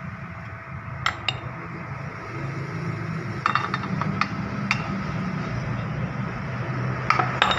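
Light metallic clinks and taps of aluminium plates and brackets being handled and set against an aluminium extrusion frame: a couple of taps early, a small cluster in the middle, and two more near the end, over a steady low hum.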